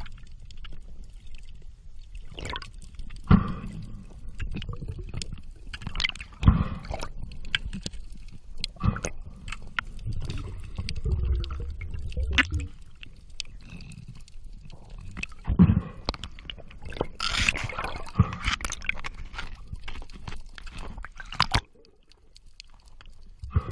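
Sound recorded by an underwater camera: water rushing and gurgling with a low rumble, broken by sharp clicks and knocks and several louder bursts of churning water. It falls away near the end.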